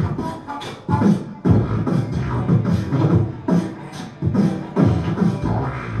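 Human beatboxing into a microphone: a steady beat of deep kick-drum thumps and hissing hi-hat and snare sounds made with the mouth, with a harmonica playing along.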